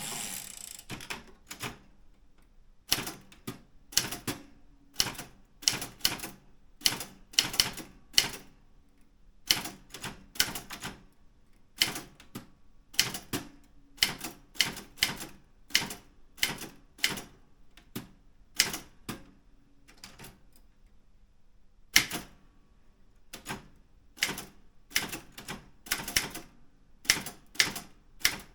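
Daro Optima M16 manual typewriter being typed on: sharp keystroke clicks of the type bars striking in uneven runs of about two to three a second, broken by short pauses, the longest near the end. A brief rasping noise comes at the very start.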